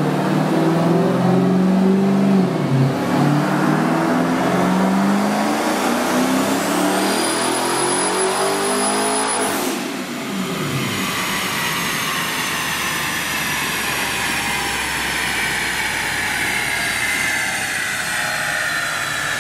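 Owner-built twin-turbo Chrysler 300C SRT8 Hemi V8 making a full-throttle pull on a chassis dyno. The revs climb for about nine seconds, with a high thin whistle rising in over the last few. Then the throttle closes and the engine winds down with slowly falling whines.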